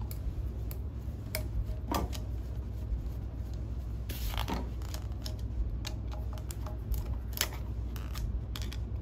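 Phillips screwdriver turning out the bracket screws that hold a glycol chiller's pump to its motor: scattered small metal clicks and scrapes, a few sharper ones about two and four and a half seconds in.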